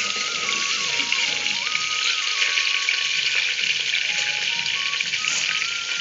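Sliced onions frying in hot oil in a pressure cooker pot on a gas stove: a steady, dense sizzle with fine crackling.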